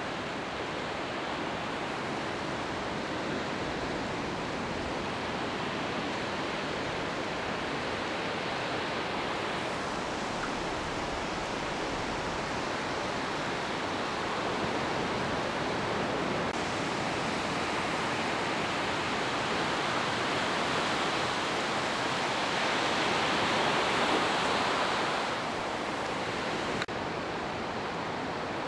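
Ocean surf washing up a sandy beach: a steady rush of breaking and receding waves that swells louder a few seconds before the end and then drops back.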